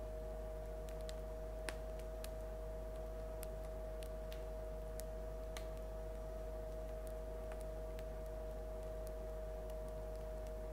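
Loaf of freshly baked bread 'singing': its crust crackling in scattered small sharp clicks, one a little louder about two seconds in, over a steady hum. The crackle is the crust cracking as the loaf cools.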